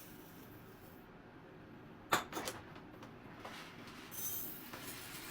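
A couple of sharp clicks or knocks about two seconds in, then a brief hiss near the end, as dry rice is tipped out of a cup onto the floor for a vacuum suction test.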